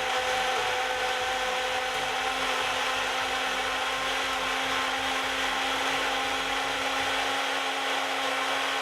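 Blender running steadily, its motor holding one even pitch, as it purees kiwi, celery, cucumber and ginger with a little water and no ice.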